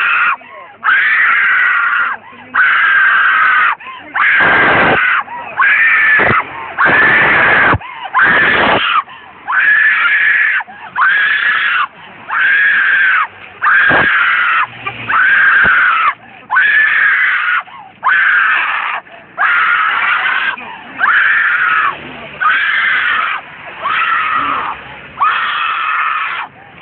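A woman screaming over and over, about twenty screams in a steady rhythm, one every second or so. Each scream rises and then falls in pitch.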